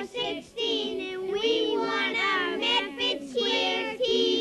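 A group of young boys singing together, their voices holding and sliding between notes with only short breaks for breath.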